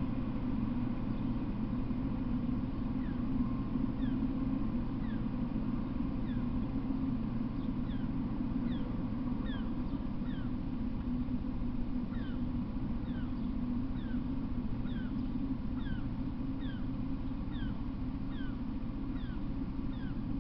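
A bird calling in short falling chirps, about two a second, over a steady low rumble.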